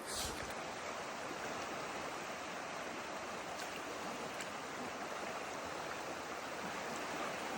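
Steady rushing of a river running slightly high and coloured after rain, an even wash of water noise.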